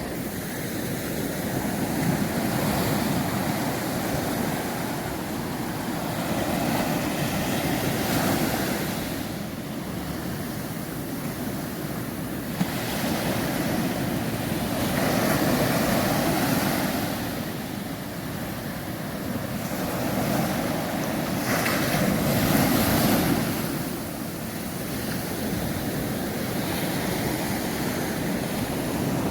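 Sea waves breaking and washing up a sandy beach, swelling and easing every few seconds, with wind buffeting the microphone.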